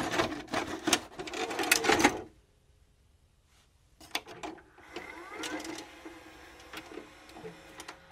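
VCR mechanism clicking and clunking as a VHS tape is loaded, then a pause of about two seconds. Fainter clicks and a steady whir follow as the tape starts to play.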